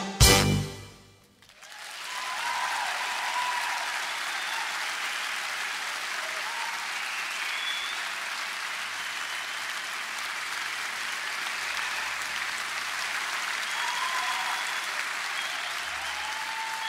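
A polka band's last note cuts off within the first second, then an audience applauds steadily, with a few voices calling out over the clapping.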